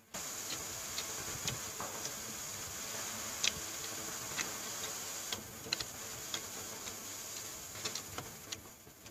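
Close-miked eating sounds: chewing and mouth clicks, with a plastic spoon tapping and scraping in a foam food box, heard as scattered sharp clicks over a steady hiss that eases off near the end.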